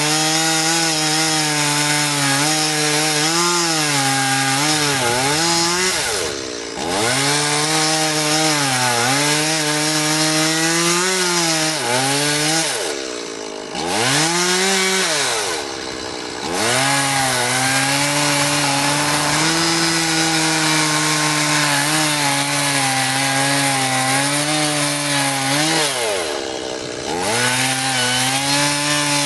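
Two-stroke gasoline chainsaw cutting into an upright wooden log, its engine pitch rising and sagging as the chain bites into the wood. Four times it drops briefly toward idle and revs straight back up.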